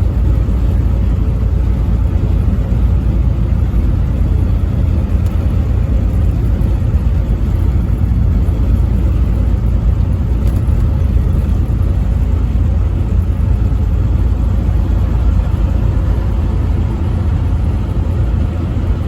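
Steady low rumble of a truck driving on the interstate: engine and road noise, with no horn sounding.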